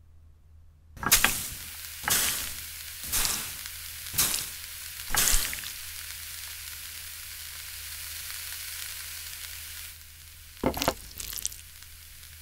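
Oil sizzling in a hot cast-iron pan with round wells as it is brushed on, with five louder flares about a second apart and then a steady sizzle. A few sharp clicks near the end.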